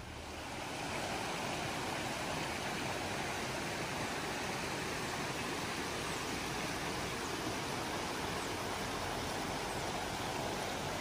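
Shallow rocky creek running over and between stones: a steady rush of water that swells up in the first second and then holds even.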